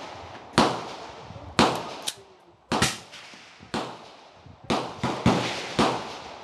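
Gunshots on a firing range: about eight separate shots of varying loudness, most roughly a second apart, each trailing off in a long echo.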